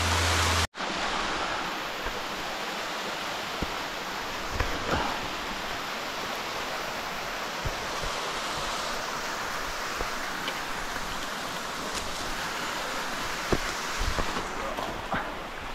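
Steady rush of a large waterfall close by, with a brief gap just under a second in and a few faint knocks.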